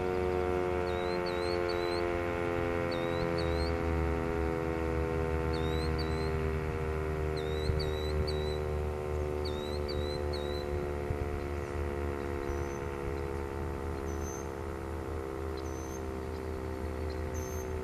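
Sentry 10V outdoor warning siren sounding a steady, chord-like tone that slowly drops in pitch and fades. It is a worn, 'sick' unit that has seen better days but is still punchy. Birds chirp over it.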